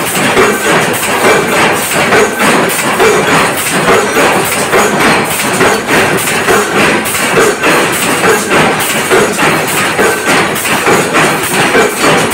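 Power press stamping steel strut clamps through a progressive die: repeated metal-on-metal strokes in a steady rhythm of about two a second, over constant loud machine noise.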